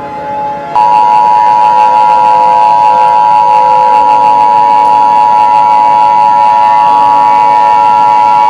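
Emergency Alert System attention signal: a loud, steady two-tone alarm (853 and 960 Hz together) that starts abruptly about a second in and holds unchanged, announcing an alert message.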